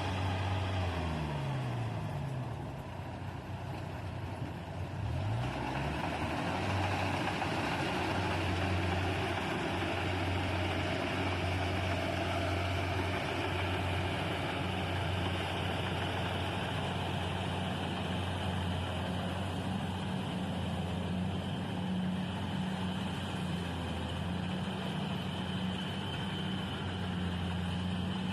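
Rice harvester's engine running with the machinery's steady mechanical clatter over it. The engine speed sags briefly near the start and again about five seconds in, then holds steady.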